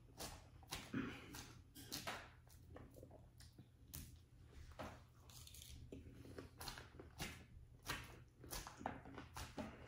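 Faint eating sounds: crisp lettuce salad crunching as it is chewed, with irregular clicks of a metal fork picking through the salad in a plastic container.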